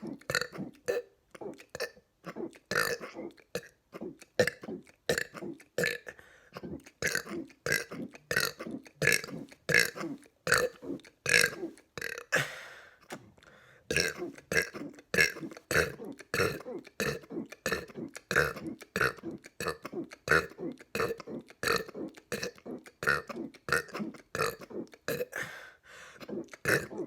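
A man burping over and over in quick succession: small, short burps, about two or three a second, with a brief pause roughly halfway through.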